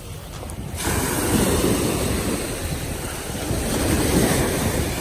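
Ocean waves breaking and washing up on the beach, swelling about a second in and again near four seconds, with wind rumbling on the microphone.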